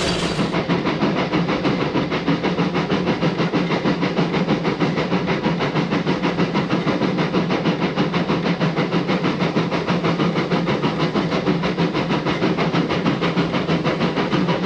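Narrow-gauge Puffing Billy steam locomotive working along the line, its exhaust chuffing in a quick, even beat over a steady hiss of steam and running noise.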